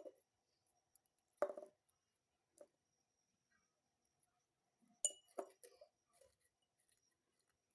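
Dry pieces of kaf maryam (Rose of Jericho) being snapped and dropped into a glass jar: a few light clicks and clinks, spaced apart, with a small cluster about five seconds in, where one strike gives a short glassy ring.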